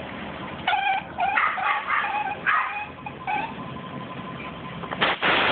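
A dog giving a string of short, high-pitched yips and whines, then a loud rushing noise starts near the end.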